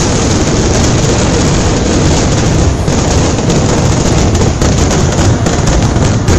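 Aerial fireworks going off in a dense, unbroken barrage, many bangs and crackles overlapping with no pause between them.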